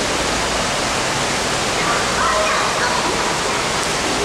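Steady rushing of water with splashing in a swimming pool, and a faint voice about two seconds in.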